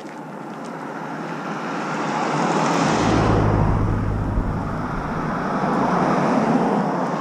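Road traffic going by: a truck's tyre and engine noise swells and passes about three seconds in with a low rumble, and another vehicle comes up near the end.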